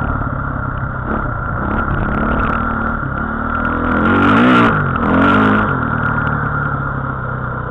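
Motor vehicle engine running, revved up and back down twice in quick succession about halfway through.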